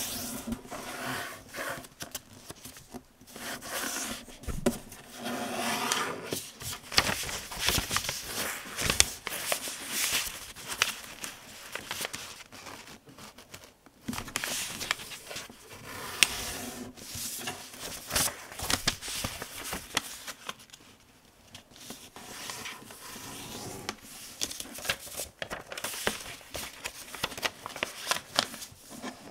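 A printed paper-airplane sheet being folded by hand on a tabletop: irregular rustling, sliding and crinkling of paper, with short sharp taps and scrapes as the folds are pressed down.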